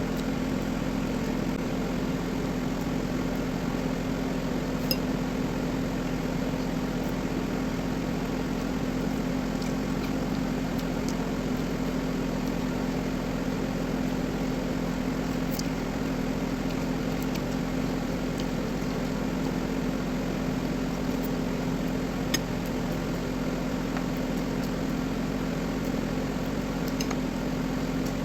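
Steady mechanical hum with a low, even drone, dotted with a few faint clicks.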